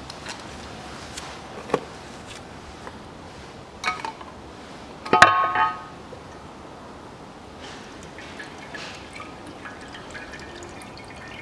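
Nissan Murano CVT oil pan coming off. There are a few metal clicks, then one loud metallic clang with a brief ring about five seconds in. After that, CVT fluid drips and trickles from the opened transmission into a drain pan.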